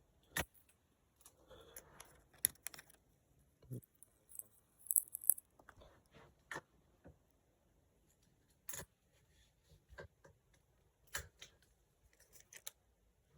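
Light clicks and taps of a coin and small cleaning tools being handled on a hard surface, with a short run of high scratchy scraping about five seconds in.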